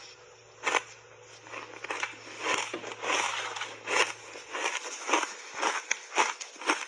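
Close-miked chewing of a mouthful of dry block ice coated in milk powder and matcha: a string of irregular crisp crunches, about two or three a second, starting about half a second in.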